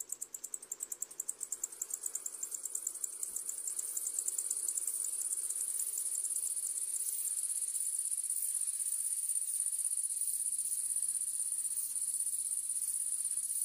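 Summer insects shrilling: a high chirping that starts suddenly as rapid even pulses, about ten a second, then blurs into a steady high trill. A soft rushing hiss sits beneath it for the first several seconds, and a faint low hum comes in near the end.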